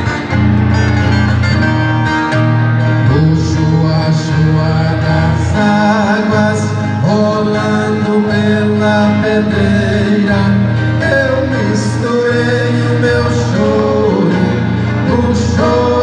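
Two violas caipira played together in a caipira (sertanejo raiz) tune, plucked and strummed steadily.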